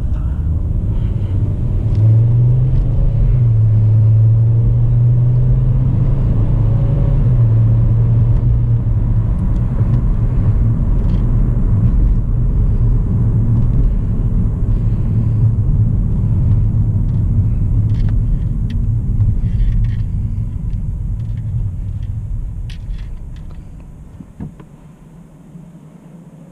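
Steady low rumble of engine and road noise inside a moving 2009 Volkswagen Jetta's cabin, with a few light ticks and knocks, dying away over the last few seconds as the car slows.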